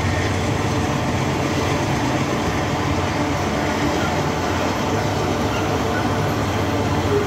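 Loaded iron-ore gondola wagons of a long freight train rolling past, a steady noise of steel wheels running on the rails.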